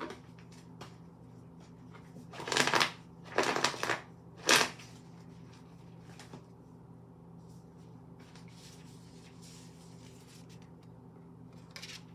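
A deck of cards being shuffled by hand: three short rustling bursts a couple of seconds in, then a softer rustle near the end as a card is laid out.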